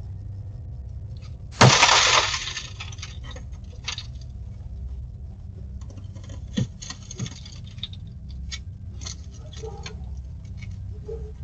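Glass breaking: one loud, sharp crash about one and a half seconds in, followed by scattered smaller clinks and taps, over a steady low background hum.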